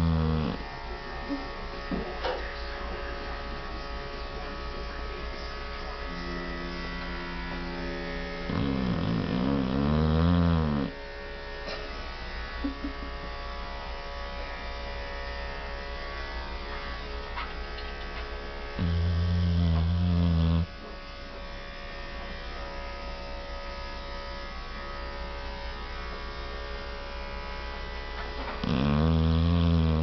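Sleeping dog snoring: a loud snore about every ten seconds, each lasting around two seconds, one of them preceded by a softer snore. Under the snores runs a steady electrical hum.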